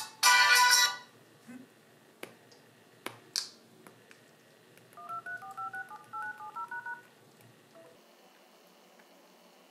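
An HTC Wildfire E3's incoming-call ringtone plays loudly and cuts off about a second in as the call is answered. Midway a quick run of about a dozen short telephone keypad (DTMF) tones sounds over the connected call, with a few faint taps on the phone before and after.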